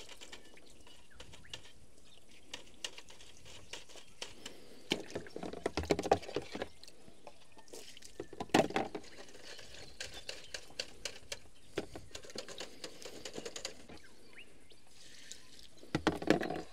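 A brush, its handle lengthened with a piece of hose, scrubbing and scraping caked dirt off a metal end plate inside an Allison transmission housing: irregular scrubbing strokes with small knocks, louder in spells around five to six seconds in, at about eight and a half seconds, and near the end.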